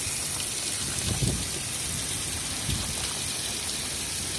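Water from a garden hose spraying onto a heap of live crabs in a concrete pit: a steady hiss and patter of spray on shells and concrete, with a couple of dull bumps.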